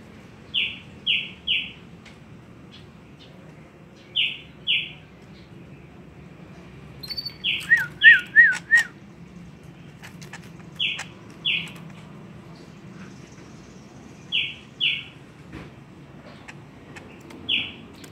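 A pet bird calling: short, high chirps in pairs or threes, repeated every few seconds, with a brief warbling trill about eight seconds in.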